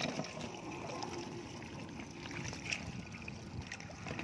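Shallow water sloshing and trickling, with a few faint splashes, as a person wades and reaches in among floating water plants.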